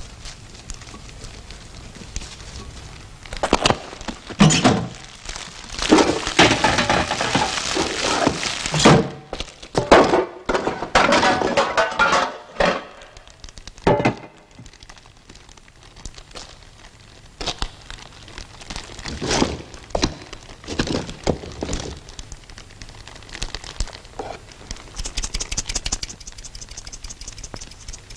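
Kitchen handling noises: a run of knocks, thuds and scraping as bowls, pots and moulds are worked on a table. The sounds are dense in the first half and scattered after it, and a fast rasping rhythm comes near the end.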